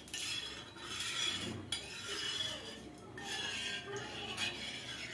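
Flat metal spatula scraping and rubbing around the inside of a hot metal pan, spreading desi ghee over its surface.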